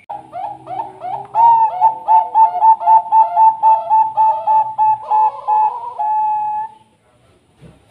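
Bangkok-strain zebra dove (perkutut) singing: a quick run of short coos, about five a second, that turns louder about a second in and ends on one drawn-out note near the end.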